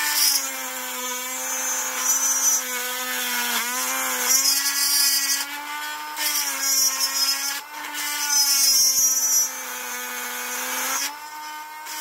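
Cordless rotary tool with a cutting disc running at a steady high whine while it cuts through a metal rod, with repeated spells of hissing grinding as the disc bites into the metal and the motor pitch dipping slightly under the load.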